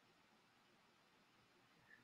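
Near silence: faint steady hiss of the recording's noise floor.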